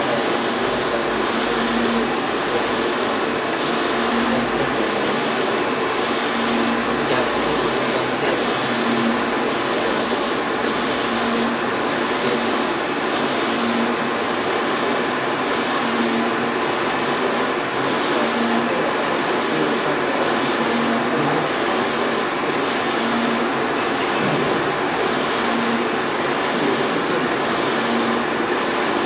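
UV flatbed inkjet printer running while printing a large plastic sheet: a steady mechanical whir from the print-head carriage and machine, with a regular pulse under a second apart as the carriage shuttles back and forth.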